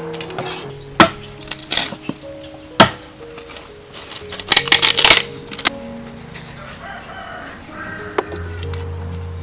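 Sharp knocks of a knife chopping into a plank of firewood, about a second in and again nearly two seconds later, then a longer rasping burst around the middle, over background music.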